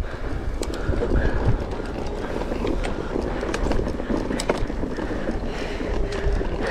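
Mountain bike riding fast down loose, rocky singletrack: steady wind noise on the microphone and tyres running over dirt and rock, with frequent sharp knocks and rattles from the bike.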